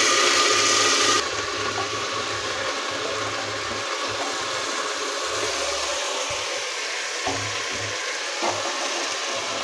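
Chopped vegetables sizzling as they hit hot oil and cumin seeds in a pressure cooker. The sizzle is loudest in the first second, then settles into a steady hiss, with a couple of light knocks of the metal tray against the pot rim.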